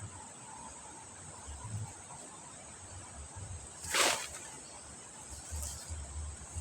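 Steady high-pitched chirring of insects, such as crickets, with low rumbling under it. About four seconds in comes a single short, sharp sound, the loudest thing heard.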